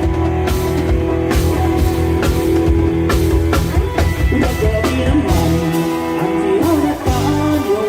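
Loud live band music from a Thai rot hae mobile band truck: drum kit, heavy bass and guitar playing an upbeat song, with a lead melody that slides in pitch coming in around the middle.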